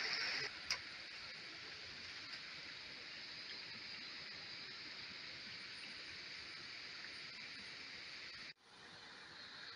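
Steady rushing hiss of a forest stream flowing over rocks, louder for the first half-second, with one sharp click just under a second in and a brief cut-out near the end.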